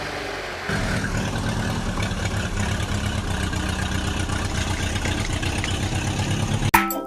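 A vehicle engine running steadily with a fast, even low pulsing, starting under a second in and cutting off suddenly near the end.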